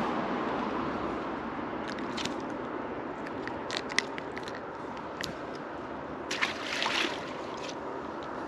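Handling noises as a small spotted seatrout is lifted from the water, unhooked and let go: a scatter of short sharp clicks and scrapes, the loudest about four seconds in and a small cluster around seven seconds, over a steady background hiss.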